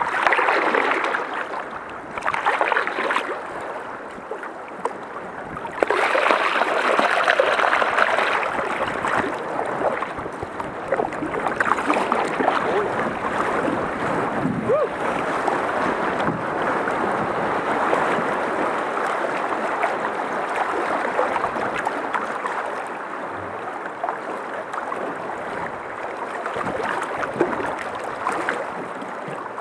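Rushing, splashing water of a shallow river rapid running past a paddled canoe's hull. It swells louder in places, most of all for a couple of seconds from about six seconds in.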